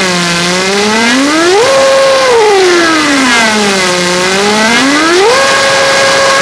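Mockingbird variable-pitch fire alarm whistle blowing loud. Its note slides down low and swings back up twice, holding briefly on the high note about a second and a half in and holding again on it from about five seconds in.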